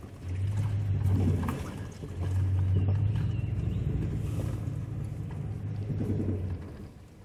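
Chevrolet Silverado pickup truck droning low inside the cab as it creeps along a rough campsite track, with a few knocks. The drone dips briefly twice and drops away about six and a half seconds in.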